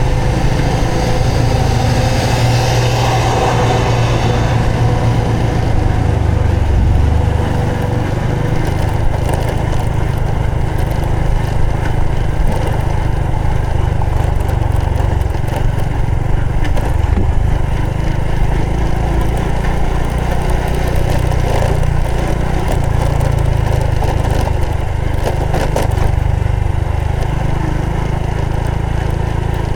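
Honda Supra X 125 FI's single-cylinder four-stroke engine running steadily under way, with the rush of the ride.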